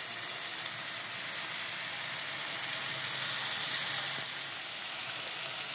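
Diced onion sizzling steadily in hot oil in a non-stick frying pan.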